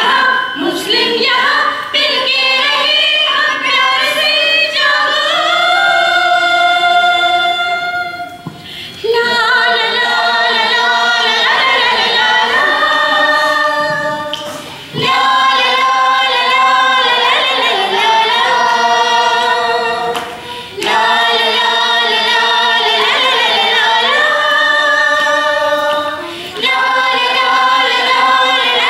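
A mixed group of children and adults singing together without instruments. They hold long phrases, with short breaks for breath about every six seconds.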